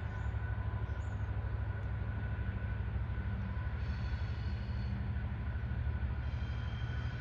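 Distant Boeing 767-300ER airliner climbing out overhead: a steady low jet rumble.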